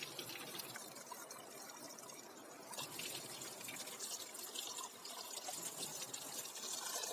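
Water pouring and trickling into a small cooking pot of washed rice, the water being added to measure it against the rice.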